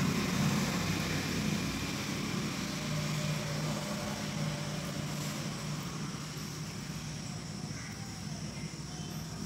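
A steady low hum under faint background noise, slowly fading a little.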